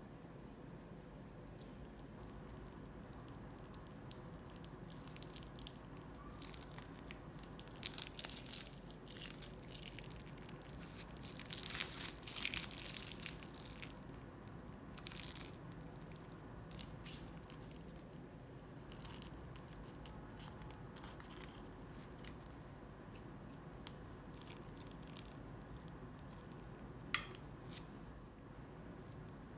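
Slime being mixed and worked by hand, quiet overall, with clusters of small crackling clicks about a quarter and about two fifths of the way in, and one sharp click near the end.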